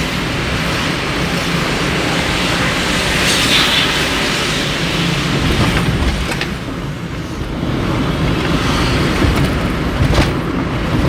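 Steady road and engine noise inside a moving car's cabin, a continuous rumble and hiss, with a couple of short knocks about two-thirds of the way in and near the end.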